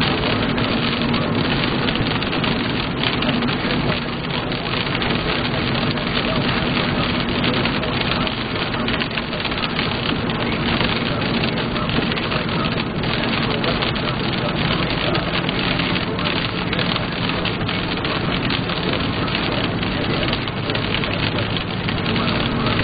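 Rain on a car driving along a wet highway, heard from inside the car: a steady hiss of rain and tyre spray with a low steady hum underneath.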